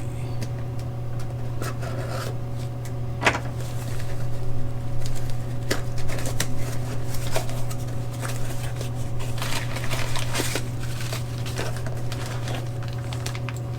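Small engine-swap kit parts being handled: scattered clicks and taps of small metal fittings and rustling of packaging, busiest in the middle, over a steady low hum.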